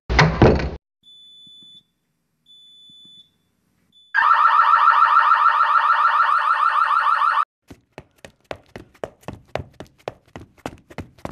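A designed sequence of sound effects: a short loud crash, two faint high electronic beeps, then a loud electronic alarm ringing for about three seconds, cut off suddenly and followed by a quick, irregular run of sharp clicks.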